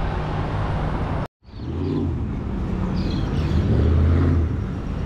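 Motor vehicle driving: steady engine and road noise, cut off completely for a moment just over a second in, with a louder low engine hum swelling about four seconds in.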